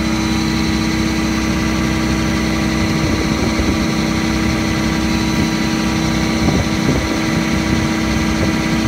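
John Deere 75D hydraulic excavator's diesel engine idling steadily.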